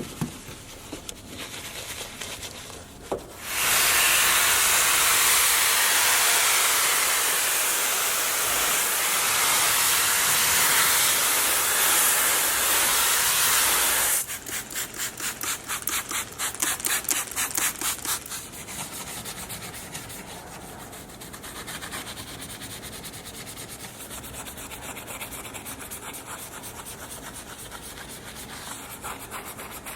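Scrubbing and rubbing strokes of detailing work on a car surface, broken by a loud steady hiss of about ten seconds that cuts off suddenly. After it comes quick, regular scrubbing at several strokes a second, which settles into quieter continuous rubbing.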